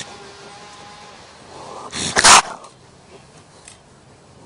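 Raccoon caught in a cage trap giving one loud, harsh hiss about two seconds in, the sound of an agitated, cornered animal.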